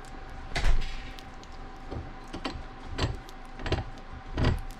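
Cast-iron bench vise being tightened on a hydraulic steering cylinder: a series of metal clunks and scrapes as the handle is worked, the loudest about half a second in, with five more spaced through the rest.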